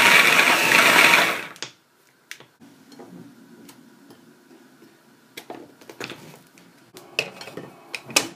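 Small electric food processor (chopper bowl with a motor unit on top) running on tomato, onion and garlic, cutting off about a second and a half in. Plastic clicks and knocks follow as the motor unit and lid are taken off the bowl, with a few sharper knocks near the end.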